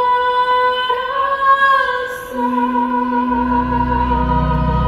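Show music: a woman's voice singing long held notes. Low sustained orchestral notes come in a little over three seconds in.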